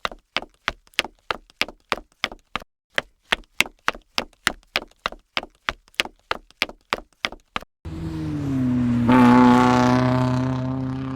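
A run of sharp, evenly spaced clicks, about three a second, that stops near eight seconds in. Then an engine-like motor starts running with a steady pitched hum that dips slightly and fades out.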